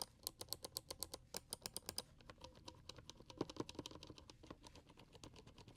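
Kailh mechanical keyboard switches being typed on rapidly, a fast even run of keystroke clicks. The character of the keystrokes changes about two seconds in, as if a different switch takes over.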